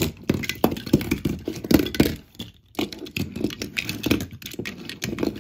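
Die-cast Hot Wheels toy cars clicking and clattering against each other and the tabletop as they are handled and shuffled around a pile: many quick, irregular knocks, with a brief pause a little past halfway.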